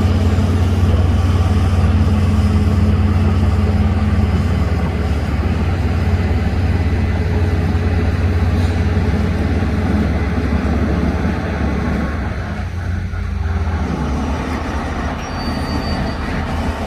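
Bulldozer's heavy diesel engine running steadily with a deep low hum, easing off somewhat about two-thirds of the way through.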